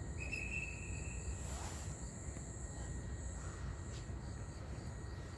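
Outdoor ambience: insects chirring in a steady thin high tone over a low rumble, with a short high tone about a quarter second in and a brief rush of noise nearly two seconds in.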